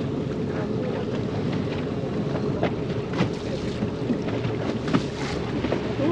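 Speedboat running at speed on open sea: a steady engine drone under the rush of water along the hull and wind buffeting the microphone, with a few short knocks about three and five seconds in.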